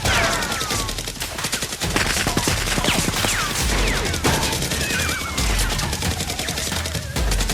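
Rapid, sustained gunfire: a dense stream of shots, with several falling whistle-like tones over it.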